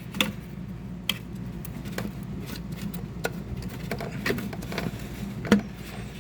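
Light clicks and knocks, roughly one a second, from a replacement air oil separator and its hoses being handled and pushed into place in the engine bay, over a steady low hum. The sharpest knock comes near the end.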